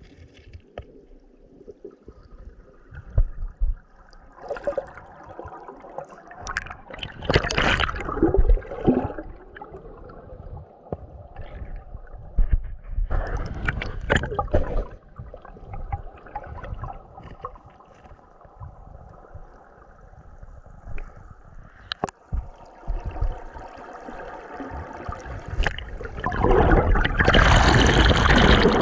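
Stream water gurgling and splashing close by, with irregular splashes throughout and a louder rush of water near the end.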